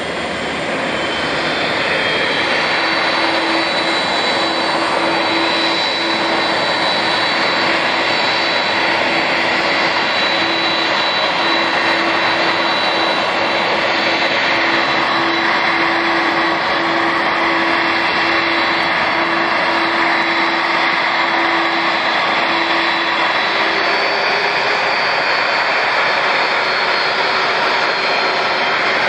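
Boeing 747-400 jet engines running, a steady rushing noise with a high whine and a lower hum, growing louder over the first two seconds.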